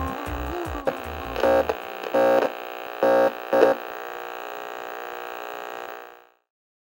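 Hip-hop intro music winding down: the bass beat stops about a second and a half in, leaving a held chord with a few louder stabs, which fades out to silence near the end.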